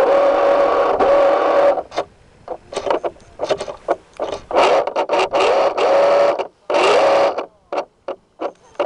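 Boat motor running with a steady whine. From about two seconds in, the sound keeps cutting out and coming back in short, choppy bursts.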